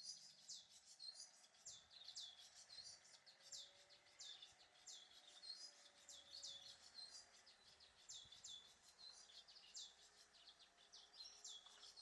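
Faint, quick high chirps of a small bird, each a short downward sweep, repeated two to three times a second.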